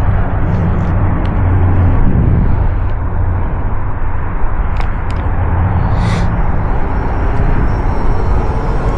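Strong wind buffeting the microphone, a steady low rumble with a few faint clicks about five and six seconds in.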